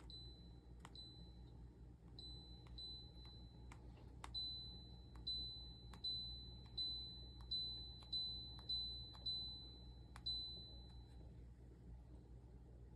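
A dozen or so short electronic beeps from a smart humidifier's control panel, each starting with a click of a key press and dying away quickly. They come irregularly, closer together in the middle, and stop shortly before the end.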